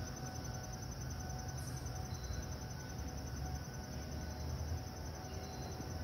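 Insects trilling steadily in the woods, a continuous high pulsing buzz, over a low rumble.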